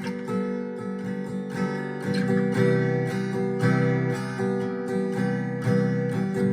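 Acoustic guitar strumming chords, with a new chord every second or two, louder from a couple of seconds in.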